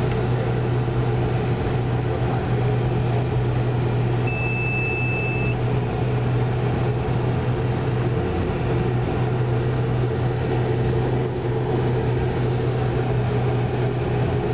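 Steady cockpit noise of a Learjet 60 in flight: the drone of its Pratt & Whitney Canada PW305A turbofans and the airflow, with a constant low hum underneath. A little over four seconds in, a single high cockpit beep sounds for about a second.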